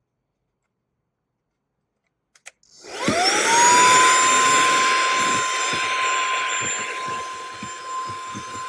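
SERVOMASTER cordless handheld vacuum cleaner switched on with a click about two and a half seconds in. Its motor spins up with a rising whine that settles into a steady high tone over a rush of air, with irregular low knocks.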